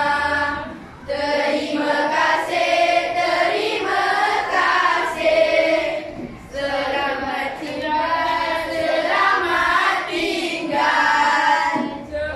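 A class of schoolchildren singing together in unison, an Arabic-lesson action song sung in phrases with short breaks about a second in, around the middle and near the end.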